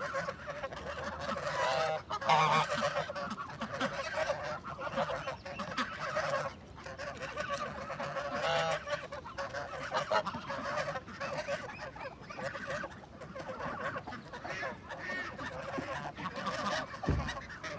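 Domestic geese honking almost without pause as the flock feeds on vegetable scraps, with a few louder bursts of calling.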